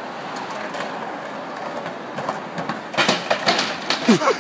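Skateboard wheels rolling on a concrete sidewalk with a steady rumble, then several sharp clacks of the board over the last second and a half, with a short falling cry near the end.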